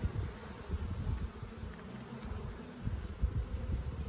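Honeybees buzzing in a steady hum around an open hive, with irregular low rumbles and bumps on the microphone.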